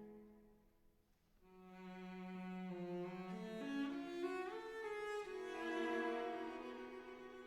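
Background music: a slow bowed-string melody that fades almost away about a second in, then starts a new phrase of held notes that step upward in pitch.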